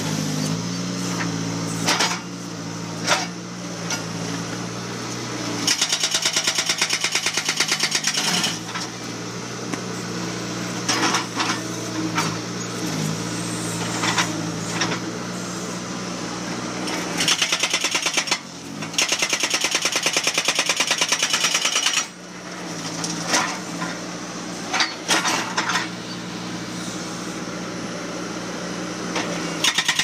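Skid-steer hydraulic jackhammer (breaker) attachment pounding a concrete wall in four runs of rapid, even blows, a few seconds each, with single knocks between runs. The skid-steer's engine runs steadily underneath.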